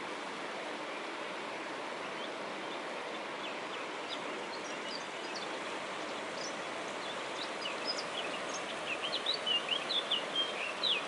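Steady rushing of a river in spate, high with brown floodwater. Songbirds chirp over it from partway through, busiest in the last few seconds.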